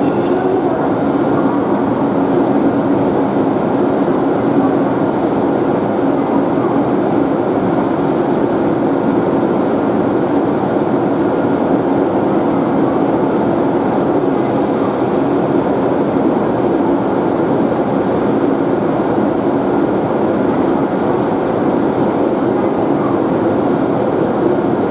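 E7 series Shinkansen train standing at the platform, giving a steady, unbroken drone with a low hum from its onboard equipment.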